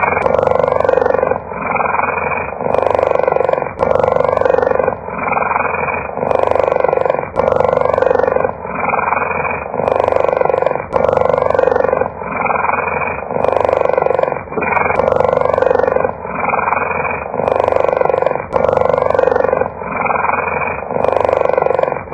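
Cheetah purring: a loud, rough, continuous rumble that swells and dips in a regular rhythm of breaths, each cycle a second or two long.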